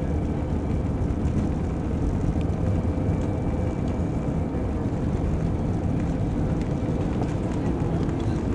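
Airbus A319 cabin noise during takeoff: steady jet engine and airflow noise, heavy in the low end, with a faint steady hum running through it.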